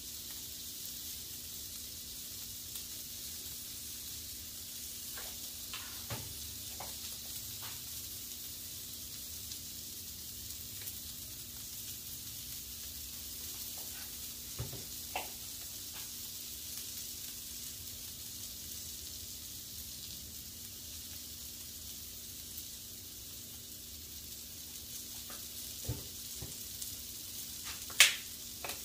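Smash burger patties frying on a Blackstone flat-top griddle: a steady high sizzle with a few scattered pops, and a single sharp click near the end.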